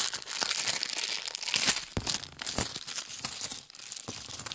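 A bag of 50p coins being opened and handled: the bag crinkling and rustling, with the coins inside clinking against each other in many small sharp clicks.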